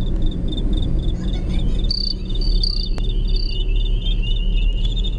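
Insects chirping in the fields, high pulses repeating about five times a second, with a second, lower trill joining about two seconds in. Under it is the steady low rumble of a car driving.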